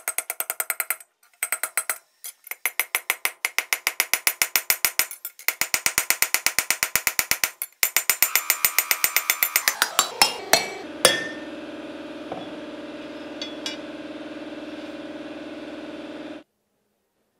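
Rapid light hammer blows on steel at an anvil, about six a second, in runs broken by short pauses, ending with a few harder strikes. A steady ringing tone then holds for several seconds and cuts off suddenly.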